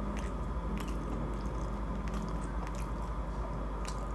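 A person biting and chewing food, with about five short crisp clicks and crunches from the mouth, over a steady low electrical hum.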